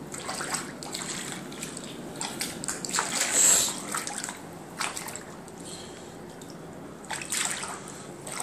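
Bare feet splashing and sloshing through shallow floodwater standing on a tiled floor, step after step, with the loudest splash about three and a half seconds in.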